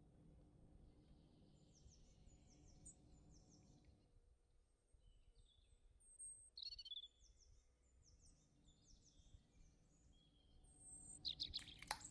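Faint birdsong: small birds chirping in short, quick downward-sweeping notes over a low steady hum. A brief, louder burst of chirps and sharp clicks comes near the end.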